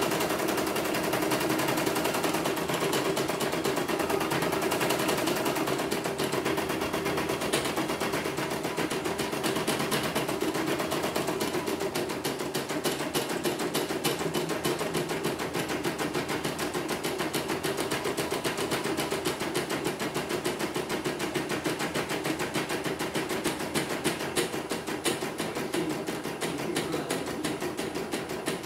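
CNY portable home embroidery machine stitching a design: the needle bar clatters in a fast, steady run of clicks as the hoop is moved under the needle.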